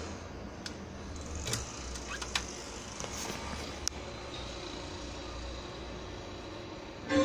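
Steady low hum and faint hiss from a power amplifier under test with no music playing, broken by a few sharp clicks as its connectors and front-panel controls are handled.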